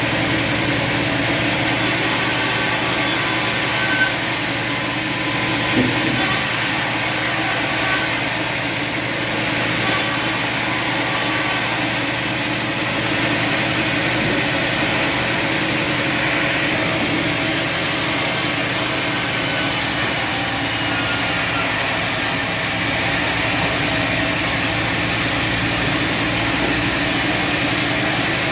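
Bandsaw sawmill running steadily, its engine and band blade cutting through a log, with a couple of sharp knocks about four and six seconds in.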